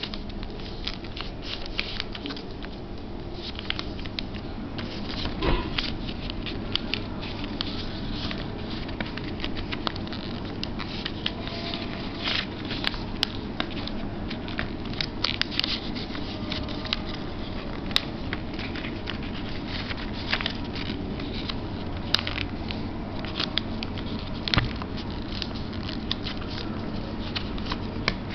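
A sheet of paper being folded and creased by hand on a tabletop: rustling and crinkling, with many short crisp clicks as the folds are pressed down. Underneath is a steady background noise.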